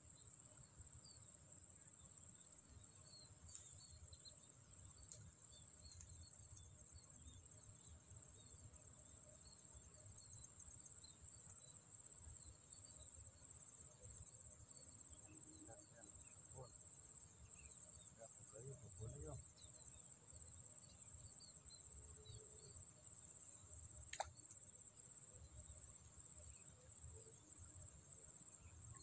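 An insect's high, continuous trill, broken by short regular gaps, over faint low background noise.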